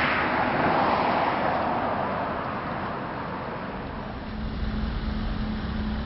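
Vehicle noise outdoors: a loud rushing sound that fades away over the first three seconds, then a steady low engine hum from about four seconds in.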